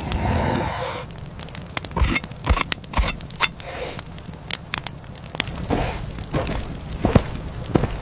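Campfire of burning logs crackling, with scattered sharp pops and a few low thuds about two to three seconds in. A louder rush of noise dies away about a second in.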